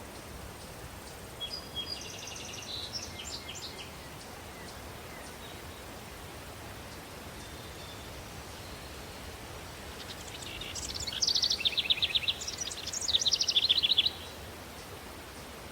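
Countryside daytime ambience: a songbird sings rapid trilled phrases over a steady, breeze-like hiss. There is a short burst of song about a second and a half in, then a longer, louder one from about ten to fourteen seconds.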